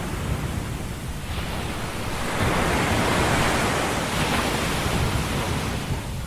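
Rushing white-noise bed of a subliminal track, with no audible voice. It swells about two seconds in and eases off near the end.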